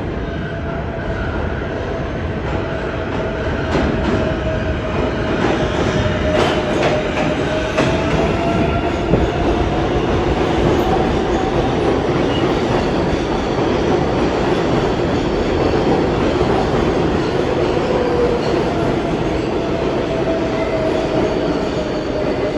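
New York subway 7 train (R188 cars) running along the platform: a steady rumble of wheels and traction motors with a wavering wheel squeal throughout. A few sharp clicks of wheels over rail joints come between about four and eight seconds in, as the sound grows louder.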